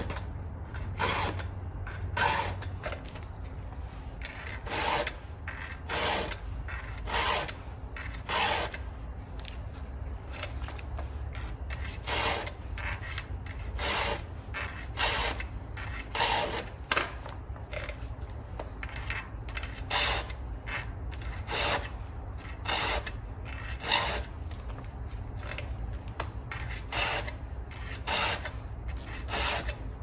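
Round chainsaw file rasping along the cutters of a Stihl saw chain, in short push strokes about once a second, with a few brief pauses between runs of strokes.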